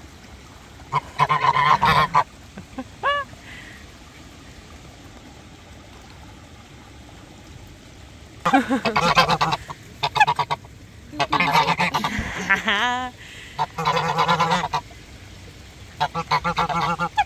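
White domestic geese honking loudly in repeated bouts, with a quieter stretch of several seconds after the first outburst and short rising-and-falling calls mixed in.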